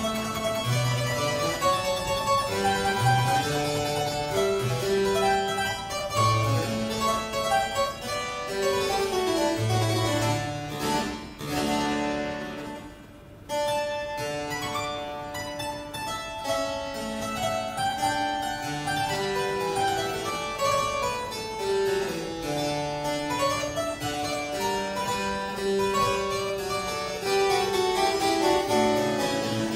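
Solo harpsichord playing quick runs of plucked notes. About twelve seconds in it pauses briefly, the last chord dying away in the hall, before the playing resumes.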